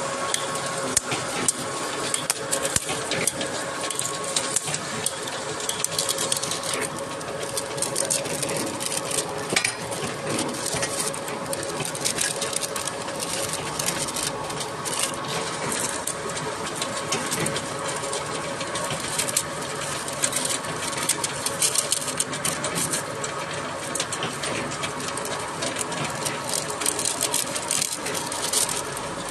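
Bottled-water filling line running: a steady machine hum under a constant, dense clicking and rattling of moving parts.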